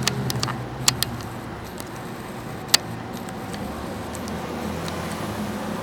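Street traffic: a car engine running at low speed, a steady low hum, with a few sharp clicks, the loudest about three seconds in.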